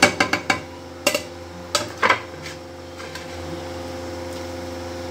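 Chopped onions tipped from a bowl into a steel cooking pot of water, with a quick run of clinks and knocks at the start and a few more clinks about one and two seconds in. A steady hum fills the rest.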